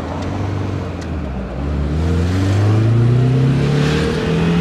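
Car engine and road noise heard from inside the moving car. About a third of the way in, the engine note starts to rise steadily as the car speeds up.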